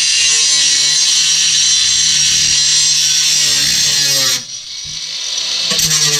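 An electric power tool's motor runs with a steady whine and hiss, winds down about four seconds in, and spins back up near the end.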